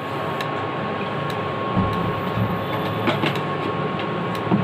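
Induction cooktop running with a steady fan-like hiss and a thin steady whine while a little oil heats in an empty kadai, with a few faint crackles a little after three seconds.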